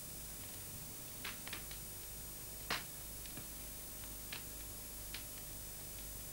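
Hand sewing a piece of cloth: a scattering of faint, irregular little clicks and taps from the needle and fabric, the loudest a little before three seconds in, over a low steady hum.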